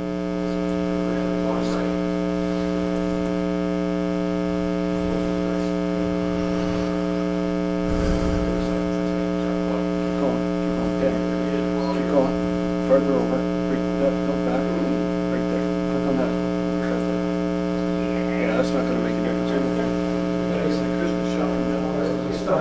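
Loud, steady electrical mains hum: a buzz made of a stack of fixed tones, with a faint low thump about eight seconds in.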